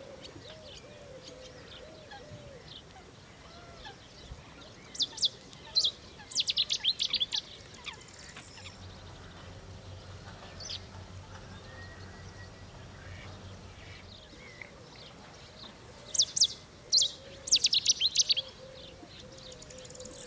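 A songbird giving two loud, rapid bursts of sharp, high notes, about ten seconds apart.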